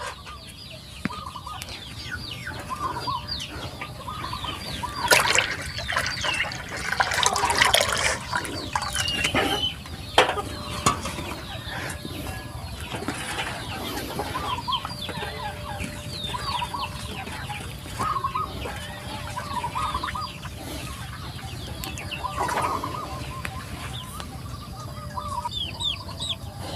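Chickens clucking, with many short repeated calls. Over them come bursts of liquid sloshing and stirring in a metal basin, loudest about five to eleven seconds in.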